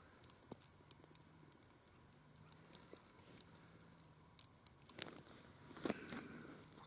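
Faint scattered light ticks and patter, with louder rustling about five and six seconds in as an ice angler pulls tip-up line in hand over hand.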